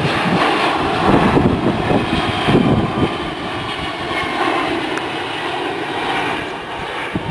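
Jet noise from a C-17 Globemaster III's four turbofan engines as the transport plane flies overhead and away, a steady roar that fades slightly near the end.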